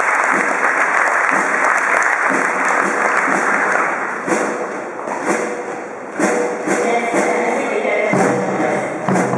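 Audience applause for the first few seconds, then a run of sharp hits, and a cadet brass band with saxophones and sousaphone starts playing, fuller near the end.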